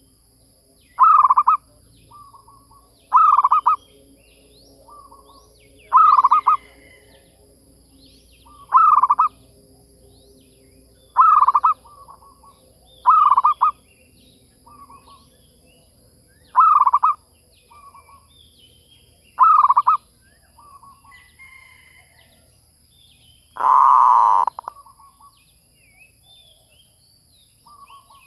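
Zebra dove (merbuk) calling, as played for a lure call: a short cooing phrase repeated about every two to three seconds, each followed by softer notes, with one longer, louder call near the end. Faint higher chirps of other birds sound in between.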